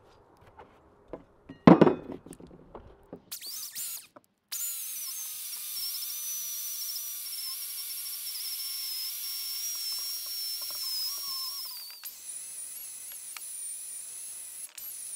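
A sharp knock about two seconds in. From about four seconds, a small high-speed rotary tool with an abrasive disc cleans rust off a cast-iron screw-hoist part: a steady high whine with hiss, easing slightly lower in pitch under load, then jumping higher about twelve seconds in.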